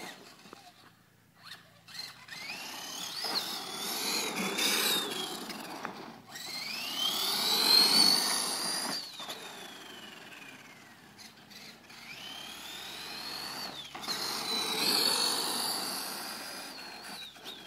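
Losi High Roller RC monster truck's electric motor whining, rising and falling in pitch as the truck speeds up and slows down over three runs, with tyre noise rushing on the road surface; the loudest pass is about halfway through.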